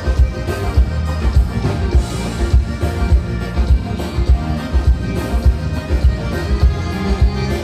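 Live gaúcho band playing an instrumental passage with a steady beat, about two beats a second, and no singing.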